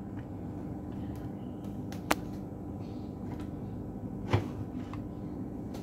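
Two sharp clicks, about two seconds in and just past four seconds, as multimeter probes are set against the drive's circuit board, over a low steady mains hum.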